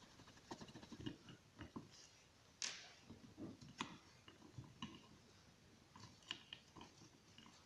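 Faint, scattered small clicks and rustles from gloved hands and a screwdriver working on a disassembled Honda distributor, pulling out the ignition module and its wires. There is a slightly sharper click a little under three seconds in.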